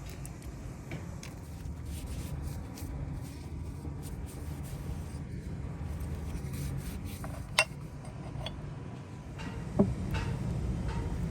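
Metal parts being handled and rubbed, with scattered light ticks and two sharp clinks, one about seven and a half seconds in and one near ten seconds.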